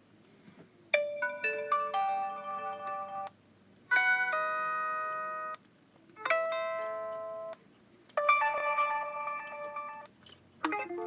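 FreedomPop ringtones played one after another: four short melodic jingles of a few notes each, with a brief pause between, and a fifth starting just before the end.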